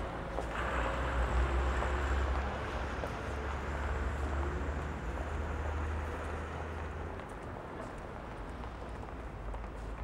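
City street traffic: a close vehicle engine's low rumble, loudest in the first couple of seconds and dropping away about seven seconds in, over a steady traffic hiss on wet road.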